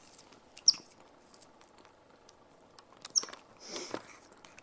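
White-faced capuchin monkey giving two short, high squeaks that fall in pitch, about a second in and again about three seconds in, while she brushes her teeth. Between them come faint clicks and a brief scratchy rustle of the toothbrush near the end.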